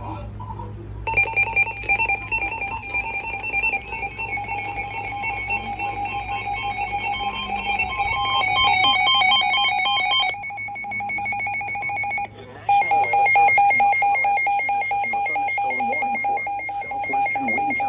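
Emergency Alert System two-tone attention signal: a harsh, steady electronic tone, like a ringing phone, the alarm that precedes an emergency warning broadcast. It changes about ten seconds in, cuts out briefly, then sounds again.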